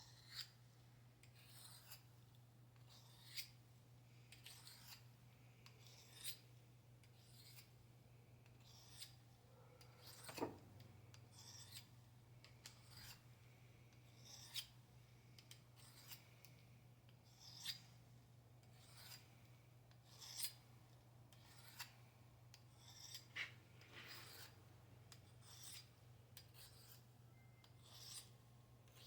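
A knife blade drawn again and again across a sharpener: short, faint scraping strokes roughly once every second or so, at an uneven pace, over a steady low hum.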